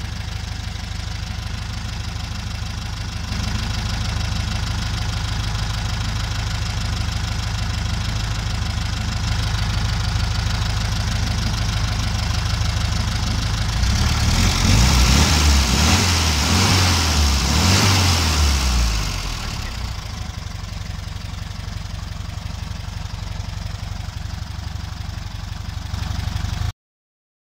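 Air-cooled flat-four engine of a VW Beetle, running on an electronic ignition conversion in place of contact points, idling steadily. About fourteen seconds in, the throttle is worked by hand at the carburettor and the engine revs up for about five seconds, then settles back to idle. The sound cuts off suddenly near the end.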